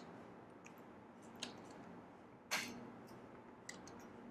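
A few faint, scattered keystrokes on a computer keyboard, the one about two and a half seconds in the loudest.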